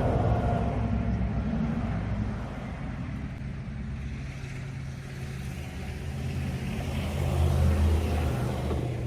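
A motor vehicle's engine running steadily, a low hum that swells about seven to eight seconds in.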